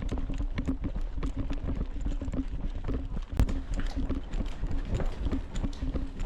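Quick, irregular footsteps and the rattle and knock of gear on a moving airsoft player, with one sharper knock about three and a half seconds in.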